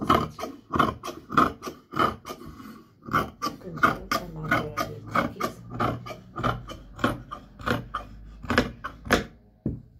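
Large fabric shears cutting through dark cloth on a table: a steady run of blade snips, about two a second, that stops shortly before the end.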